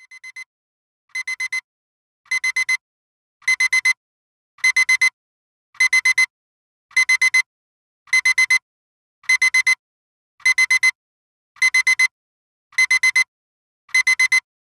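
Digital alarm-clock beeper going off: quick bursts of four high beeps, repeating a little faster than once a second. It starts faint and grows louder over the first few seconds, then holds steady. This signals that the countdown has run out.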